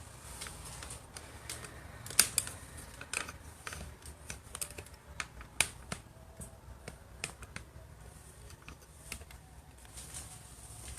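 Irregular sharp clicks and taps, two of them louder, about two and five and a half seconds in.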